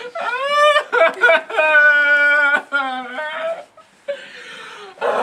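A person wailing and whimpering in long, drawn-out cries, some held on one pitch and some sliding up and down. A short hiss breaks in about four seconds in.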